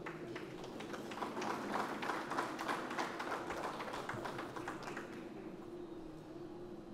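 Audience applauding: a spatter of many hand claps that thins out and fades about five seconds in.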